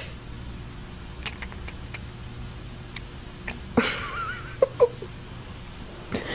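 Domestic cat sneezing and sniffling: a sudden sneeze just past halfway, followed by a brief wavering high tone and two quick sniffs, with a few faint clicks before it and another small sniff near the end.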